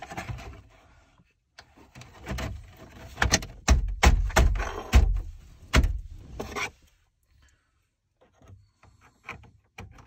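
Plastic dash trim bezel of a Ford F-150 being pressed and knocked back onto its clips around the radio: a run of knocks, clicks and rubbing, loudest in the middle, then a few light clicks near the end.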